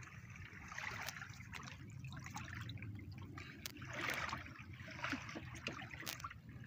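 Shallow river water trickling and lapping at the bank, with small splashes as a hand lowers a small fish into the water to release it. The loudest splash comes about four seconds in.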